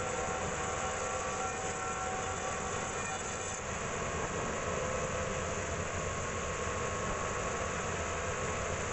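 Band sawmill running with a steady mechanical noise and a thin high whine that fades out about three and a half seconds in.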